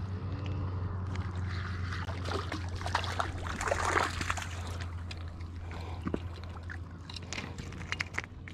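Small irregular splashes and trickling in shallow water as a fishing rod tip and jig are worked at the surface, loudest between about two and four and a half seconds in, with a steady low hum underneath.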